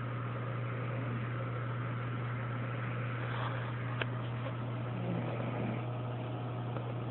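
A steady low hum with one sharp click about four seconds in.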